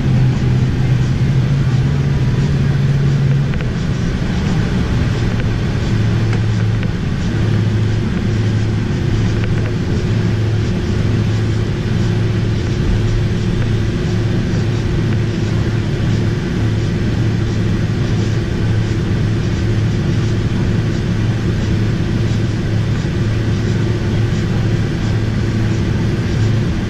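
Jet airliner cabin noise while taxiing: the Boeing 767-300ER's engines at idle make a steady low drone over a rushing hiss, heard from a seat beside the wing. About three and a half seconds in, the low hum shifts down in pitch.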